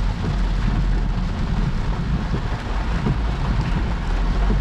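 Heavy rain hammering on a car's roof and windscreen, heard inside the cabin, over a steady low rumble of the car driving through the storm.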